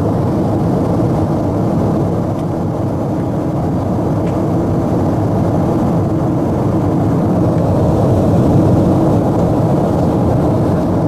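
Airliner in flight heard from inside the cabin: a loud, steady, low noise of engines and airflow that holds even throughout.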